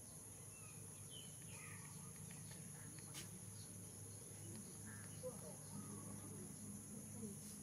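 Quiet outdoor ambience: a steady high insect drone over a low hum, with scattered faint chirps and a single click about three seconds in.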